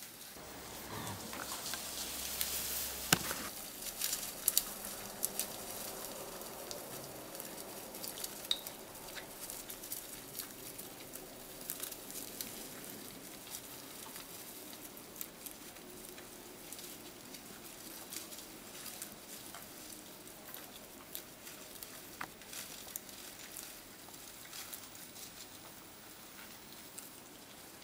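Crackling, pattering rustle of dry leaves, twigs and undergrowth as wild boar forage, with many small scattered clicks. It is loudest in the first few seconds, with a sharp snap about three seconds in.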